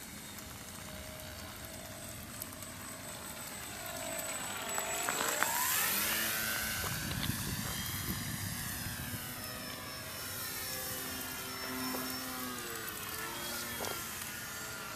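Electric motor and propeller of a ParkZone T-28 RC model plane whining overhead. The pitch swoops down and up in several arcs as it passes and turns, loudest about five to eight seconds in.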